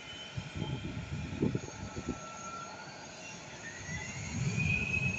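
Jet engines of a rear-engined regional jet on its takeoff roll, heard at a distance: an uneven low rumble that swells and fades, with an engine whine that rises in pitch about three and a half seconds in.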